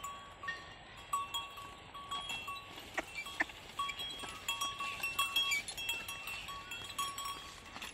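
A small bell on a working ox clinking irregularly as the animal walks, each clink ringing at the same few pitches. There are two sharp knocks about three seconds in.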